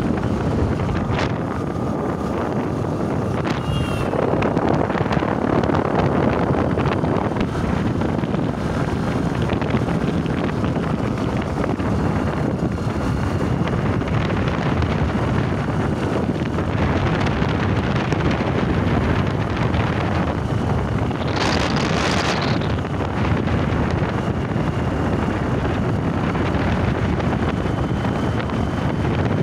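Wind rushing over the microphone with the steady noise of a moving vehicle on the road; about 21 seconds in a louder hiss swells briefly and fades.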